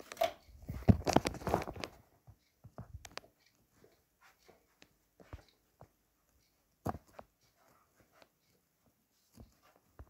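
Handling noise from a hand-held camera being moved: rustling and knocks for about two seconds, then scattered faint clicks and taps, with one sharper knock about seven seconds in.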